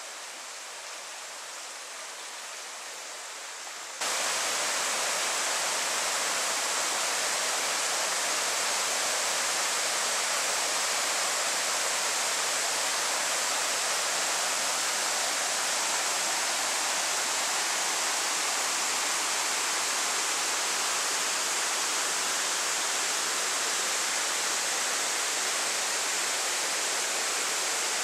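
A shallow stream rippling over rocks. About four seconds in, it gives way to a louder, steady rush of water pouring over a small concrete weir into a pool.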